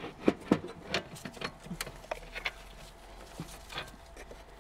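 Irregular small clicks and knocks of metal and rubber suspension parts being handled up in a wheel arch as a spring and strut are fed toward the strut top mount. The sharpest knocks come in the first second.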